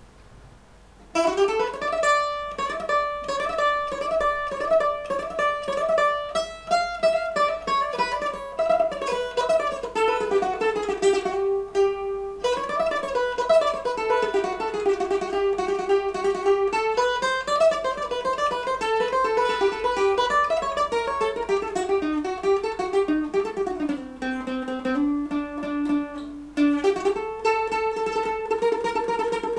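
Solo bowl-back mandolin played with a pick, a free, unmetered melodic line that rises and falls, with fast repeated picking (tremolo) to sustain the notes: an istikhbar, the improvised prelude of Algerian Andalusian and chaabi music. The playing begins about a second in and pauses briefly near the middle.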